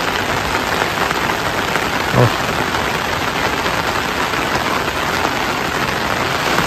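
Steady rain falling on surfaces, an even, dense hiss, with one brief low thump about two seconds in.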